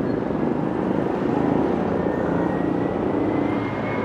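City street ambience: a steady wash of traffic-like street noise, with a faint high whine that rises slowly in pitch through these seconds.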